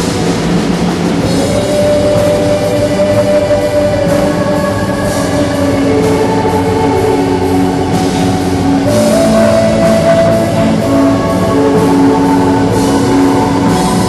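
Symphonic metal band playing live at a soundcheck: drums keep a steady beat under long held guitar and keyboard notes that change every few seconds.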